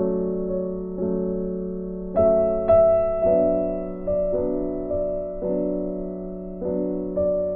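Background music: slow piano chords, each struck about once a second and fading before the next.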